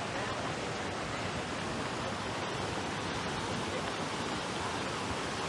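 Fountain water splashing steadily into a pool: an even, unbroken rushing hiss.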